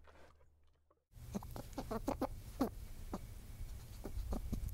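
A brief silence, then about a second in a run of short, quick clucking calls starts, several a second, over a steady low hum.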